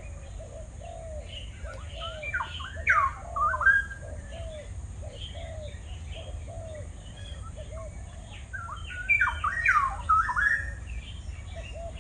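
Birds calling: a steady run of short, low, down-curving notes, with two louder bouts of higher, sweeping whistled notes, the first about two seconds in and the second around nine seconds in.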